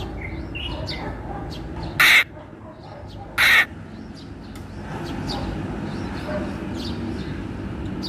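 Grey treepie giving two harsh, grating calls, about two and three and a half seconds in, with faint chirps of other birds behind.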